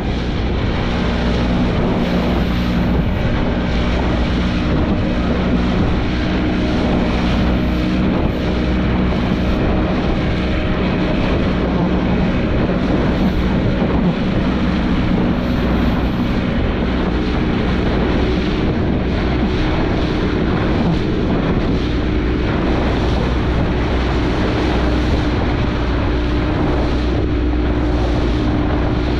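Boat engine running with a steady drone, with wind on the microphone.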